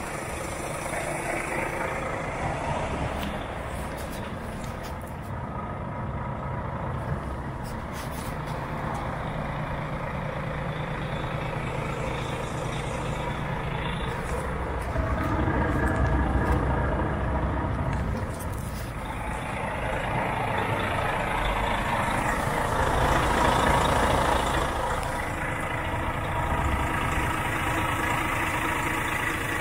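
Volvo FH4 tractor unit's 460 hp Euro 6 13-litre straight-six diesel idling steadily, with louder spells of broad noise about halfway through and again later.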